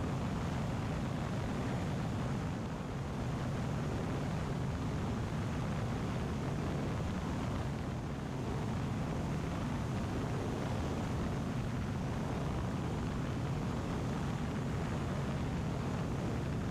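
Zenith 750 Cruzer light aircraft's Viking 130 engine and propeller droning steadily in cruise, with wind rush over the airframe. The soundtrack is sped up and turned down.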